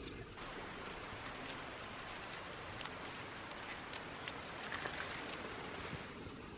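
A hiker's footsteps on the walking track, heard as scattered light taps and ticks over a steady outdoor hiss.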